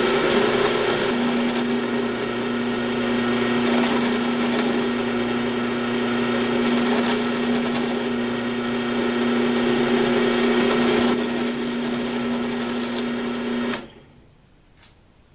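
Small benchtop drill press running with a steady motor hum while a 4 mm twist bit is fed into an aluminum plate; the motor is switched off near the end and the sound cuts off suddenly.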